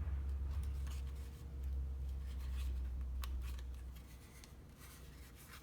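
Cardstock paper rustling and crinkling in short bursts as rose petals are handled and pressed together, over a low rumble that fades out about four seconds in.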